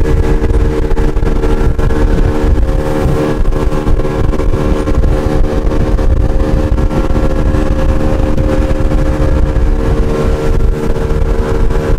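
Fishing boat's outboard motor running at a steady speed under way, heard from on board: a loud, even drone at constant pitch over a heavy low rumble.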